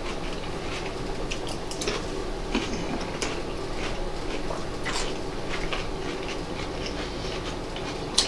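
Forks clicking and scraping in bowls of pickled food, with chewing, as short scattered clicks over a steady room hum; the sharpest click comes near the end.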